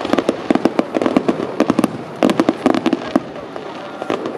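Aerial firework shells bursting, with dense volleys of sharp crackling pops from the bursting stars; the crackle thins out for the last second or so.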